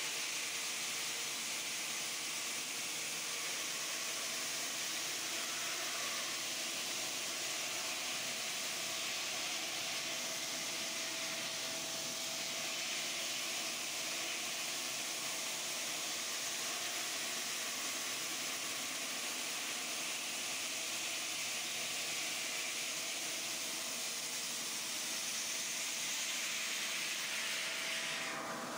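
Large water-cooled circular diamond saw cutting a stone block: a steady hissing rush of cooling water and grinding, with a faint steady tone underneath.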